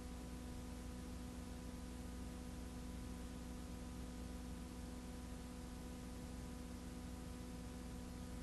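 Steady hiss with a constant low hum and no other sound.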